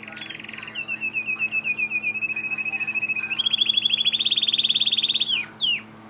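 Spanish Timbrado canary singing a fast trilled phrase of rapidly repeated notes. About three seconds in the trill steps up in pitch and loudness, and it ends with two quick downward sweeps.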